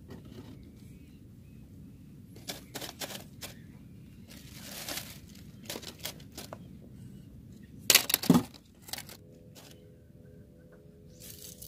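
Rustling and clicking as a fishing rod, line and tackle are handled, with a louder rushing burst about eight seconds in. A few steady tones set in about nine seconds in.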